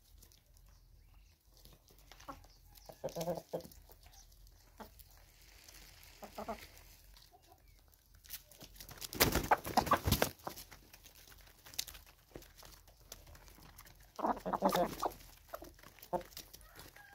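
Chickens clucking in short, soft bursts while pecking at feed on concrete, with scattered light taps. About halfway through comes a louder burst of rattling noise as a handful of feed is thrown down among them.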